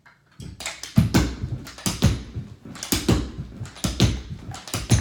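Carpet being worked onto a tack strip along a wall: an irregular run of thumps and knocks, several a second, starting about half a second in.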